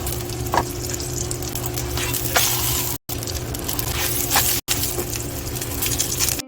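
Chive pancake (buchujeon) batter frying in oil in a pan, sizzling steadily, with a few short taps of a utensil. The sizzle drops out briefly twice.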